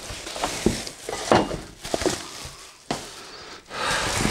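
Cardboard box and packaging being handled as parts of a baby bath set are pulled out: a few sharp knocks of parts against the box, then a steadier rustle near the end.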